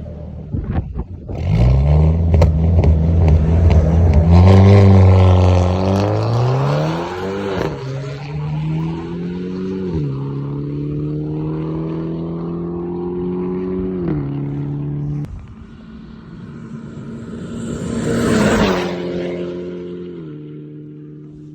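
Turbocharged four-cylinder engine of a tuned Alfa Romeo MiTo Veloce with a TD04 turbo kit, held at steady high revs on launch control with sharp pops and crackles from the exhaust. The revs then climb and drop suddenly several times, with one loud rise and fall near the end.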